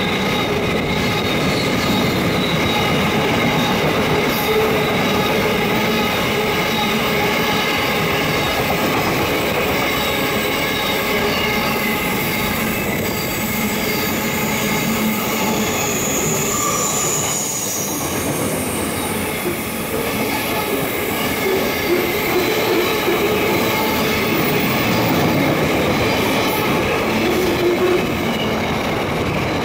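Long intermodal freight train of container wagons and boxcars rolling past at speed: steady wheel-on-rail noise with high-pitched ringing tones held over it.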